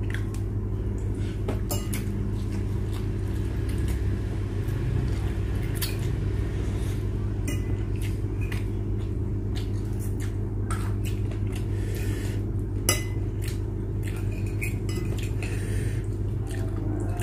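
Metal spoons and forks clinking and scraping against ceramic plates while noodles are eaten, in scattered light clicks with one sharper clink about thirteen seconds in. A steady low hum runs underneath.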